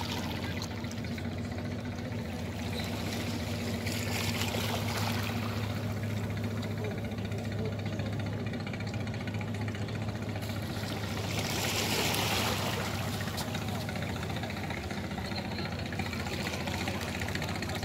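A steady low engine drone, with water washing on the rocky shore swelling up twice.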